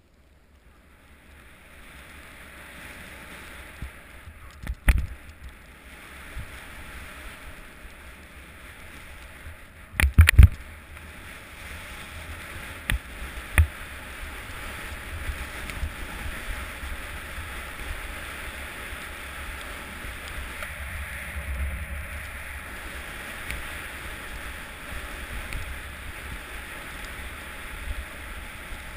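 Jack jumper's single ski sliding over packed snow down a slope, a steady hiss with wind rumble that builds over the first couple of seconds as it picks up speed. Sharp knocks cut through about five seconds in, in a cluster about ten seconds in (the loudest), and around thirteen seconds, as the ski and seat jolt over bumps.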